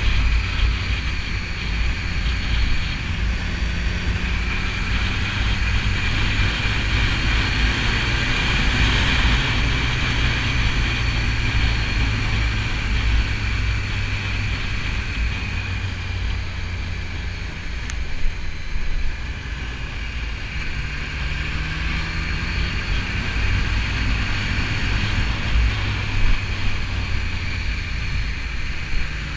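BMW S1000RR's inline-four engine running at riding speed, its pitch climbing a few times as it accelerates, under a steady low wind rumble on the microphone.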